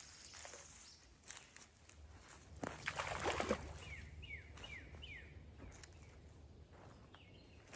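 A bird calls a run of four short, down-slurred chirps in quick succession just past the middle, with one more faint chirp near the end. Shortly before, about three seconds in, comes a brief, louder rustle and crunch among a few small clicks, as of a step in leaf litter and twigs.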